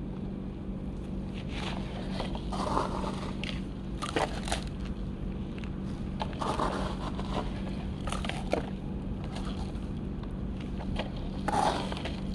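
Remote-control excavator digging dry dirt: gritty scraping and crunching of the bucket in the soil comes in bursts every couple of seconds, over a steady low hum.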